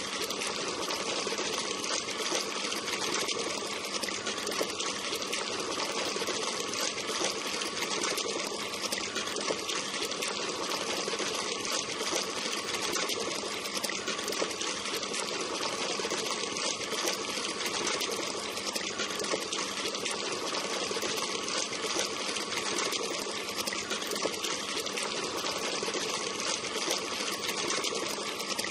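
DOGO IDB-35 half-horsepower peripheral water pump running steadily: its electric motor whirs evenly while the discharge stream splashes back into the tank of water.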